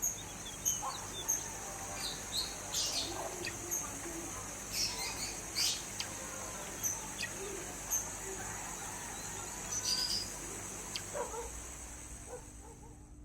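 Birds chirping and calling over a steady, high insect drone; the calls come irregularly throughout.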